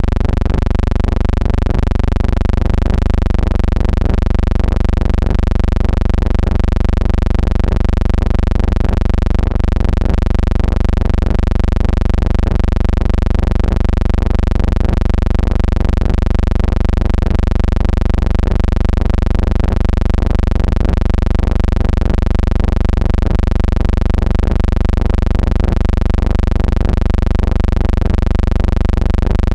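A loud, steady droning hum with many even overtones, unchanging throughout, with faint regular ticking underneath.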